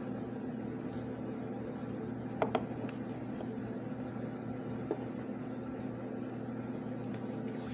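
Steady low mechanical hum, like a small fan or running appliance, with two quick clicks about two and a half seconds in and a single tap near five seconds.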